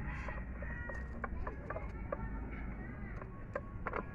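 Light, scattered metal clicks and taps from steel gears and shaft parts being shifted and seated by hand inside a Mazda 4x4 manual gearbox case, over a low steady hum.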